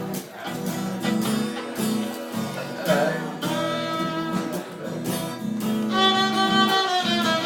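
Fiddle and guitar playing an instrumental passage of a song, the fiddle holding long bowed notes over the guitar.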